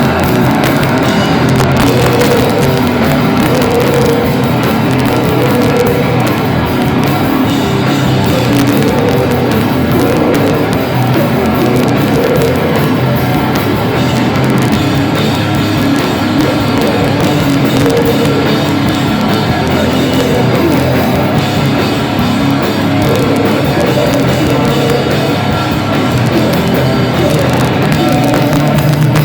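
Heavy metal band playing live, loud and without a break.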